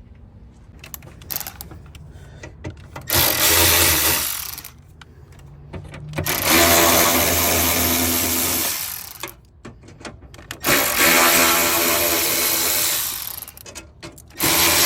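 Power drill with a 10 mm socket on an extension, spinning out the bolts of a tray under the hood. It comes in three steady runs of one to two and a half seconds, with a fourth starting at the very end, and there are small clicks and handling knocks between them.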